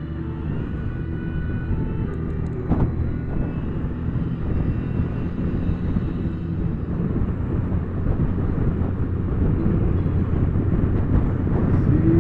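Can-Am Spyder running on the road, a steady engine and wind rumble that grows louder toward the end, with one sharp click about three seconds in. The rider hears a ticking in the ride noise that he later traces to his helmet chin strap, not the bike.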